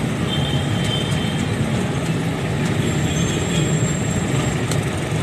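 Steady rumble of street traffic: vehicle engines running close by, with a few faint, brief high-pitched squeals.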